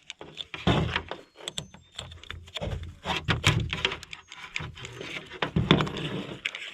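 Irregular knocks, clicks and rattles of tools and parts being handled: an angle grinder and its blade being picked up and set down.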